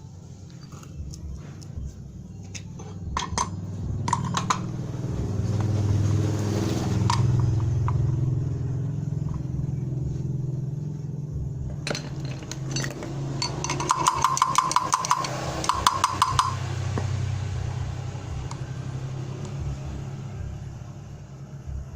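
Small brush cutter engine running steadily, swelling a little a few seconds in. About halfway through come a couple of seconds of rapid metallic clicking.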